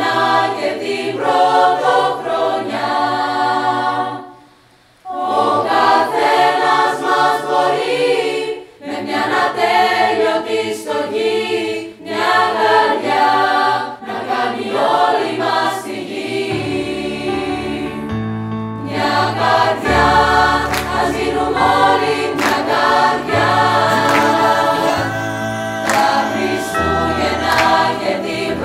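School choir of teenage voices singing a Christmas song in harmony, with a short pause about four seconds in. A deep bass line joins the voices a little past halfway.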